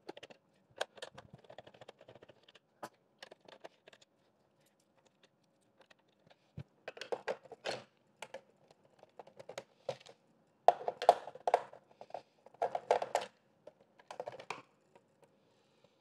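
Plastic housing of a Xiaomi robot vacuum clicking and clattering as it is taken apart with a screwdriver and its shell is separated. Scattered light clicks at first, then after a short lull denser runs of clacking, loudest in the second half.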